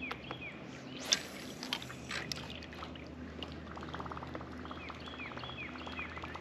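Fishing reel being cranked to retrieve a topwater chopper lure: a fast, even ticking from about four seconds in. Birds chirp in short falling notes throughout, and there is one sharp click or splash about a second in.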